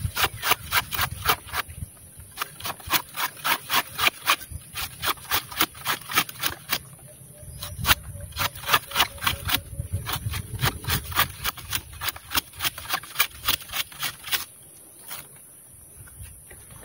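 A curved tapping knife shaving thin slices off the tip of a bound coconut flower spathe, in quick scraping strokes about four a second with short pauses, thinning out and stopping near the end. This is the fresh cut that keeps the palm sap flowing for toddy.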